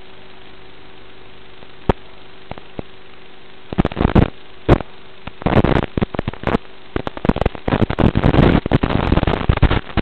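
Analog FPV video-link audio: a steady hiss with a faint hum, then from about four seconds in, loud irregular crackling static as the radio signal from the quad breaks up.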